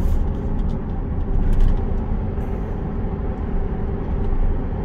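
Steady engine and road noise heard from inside a moving truck's cab.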